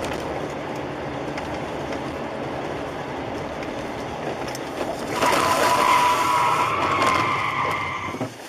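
Steady road and engine noise of a car driving. About five seconds in, a louder sound with a steady tone joins it for about three seconds, then fades.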